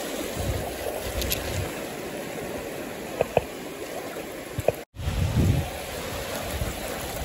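Sea surf washing onto a sandy beach, a steady rush of water with bursts of low rumble. The sound cuts out for an instant just before five seconds in.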